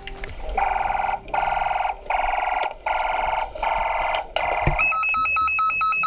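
Electronic alarm buzzer ringing in about six bursts of roughly half a second each, then switching near the end to a rapid, even two-tone beeping.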